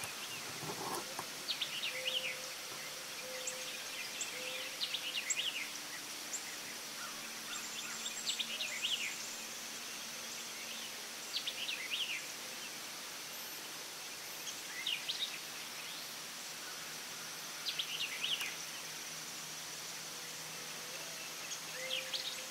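A bird calling in short bursts of quick falling chirps every couple of seconds, over a steady high-pitched insect drone.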